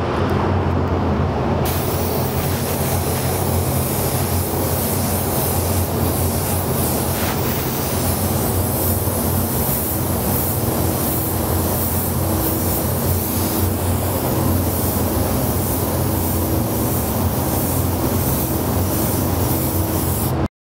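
Gravity-feed paint spray gun hissing steadily as it sprays a candy paint fade, starting about two seconds in and cutting off near the end. A steady low hum runs underneath.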